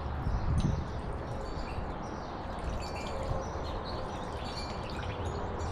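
Birds chirping faintly over steady outdoor background noise, with a brief low bump about half a second in.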